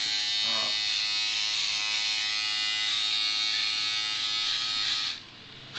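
Electric shaver buzzing steadily as it is run over a man's chin to shave off his beard, stopping abruptly about five seconds in.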